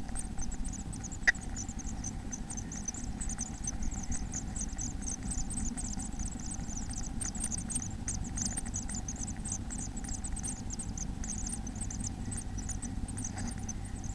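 Small birds in a nest box cheeping: a rapid, continuous stream of short, high, thin calls over a steady low hum.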